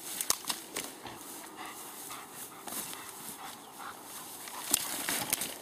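A dog moving about, making irregular short clicks and scuffs, the loudest a little before the end.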